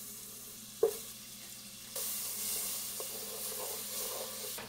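Butter sizzling as it melts and foams in a hot pot while a wooden spoon stirs it. A single sharp knock comes about a second in, and the sizzle grows louder about two seconds in, then cuts off just before the end.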